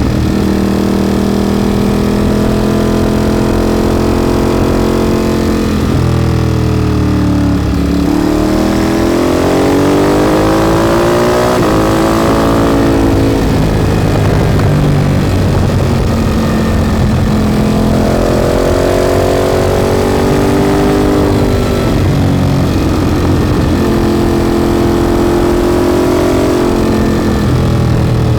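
Ducati motorcycle with a Termignoni exhaust running, its engine note falling and rising several times as the revs drop and climb.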